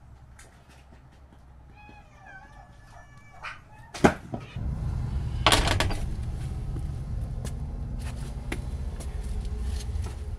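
A cat meows a few times, short and wavering. About four seconds in comes a sharp metal clack from the steel latch of a maple-and-steel plank door. Scattered clicks and knocks from the latch and door follow, over a loud low rumble of handling noise on the microphone.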